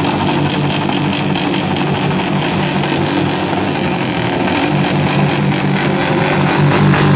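A group of cruiser motorcycles riding past slowly in a column, their engines running together as one steady engine noise that grows a little louder near the end as the bikes draw closer.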